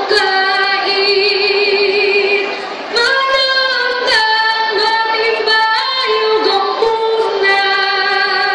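A young voice singing a melody in long held notes with a wavering vibrato, stepping between pitches, over faint musical accompaniment.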